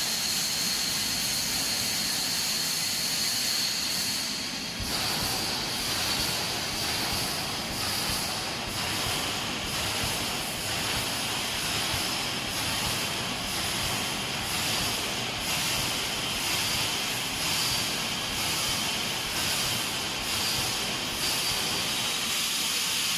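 Automatic wire mesh welding machine running: a steady hiss with a faint high whine, and a repeating welding stroke about once a second.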